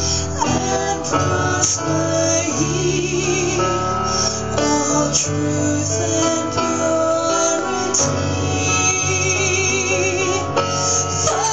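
A song: a woman's voice singing with vibrato over sustained instrumental accompaniment with a steady bass.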